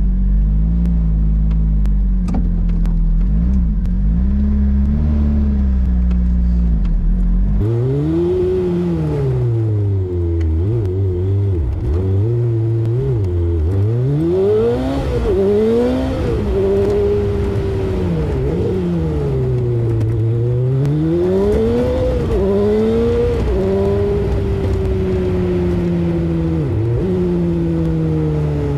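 Lotus Exige S2's four-cylinder engine, heard from the open cockpit with the roof off. It runs steadily at low revs, then about seven seconds in it pulls away and revs rise and fall again and again as it goes up through the gears. Near the end it settles into a cruise with the pitch slowly falling.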